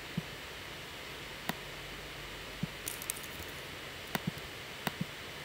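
Scattered, irregular clicks from a computer mouse and keyboard, about eight in all with a quick run of lighter ticks about three seconds in, over a steady low hiss.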